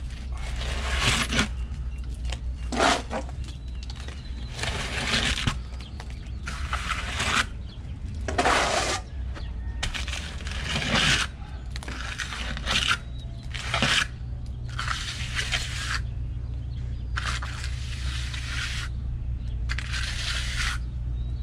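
Steel trowel scraping wet cement in about ten separate strokes, each a second or so long, over a steady low hum.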